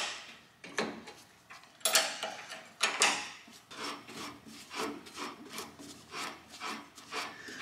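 Ratchet spanner working a nut down on a bolt through the steel mounting plate of an engine crane's arm mechanism. It makes repeated ratchet strokes: a few strong ones in the first three seconds, then quicker, lighter strokes about two a second.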